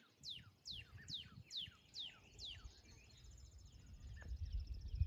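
A songbird singing: a string of about seven quick, falling high whistles, followed by a fast, high trill. Wind rumbles on the microphone near the end.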